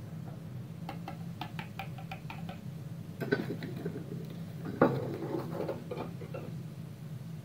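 Light clicks, taps and scrapes of a spoon and wire whisk against a mixing bowl as flour is spooned in, with one sharper knock about two-thirds of the way through. A steady low hum runs underneath.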